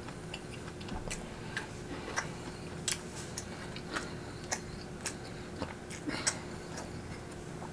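Eating sounds: irregular sharp wet clicks of chewing, about two a second, over the steady hum of an electric fan.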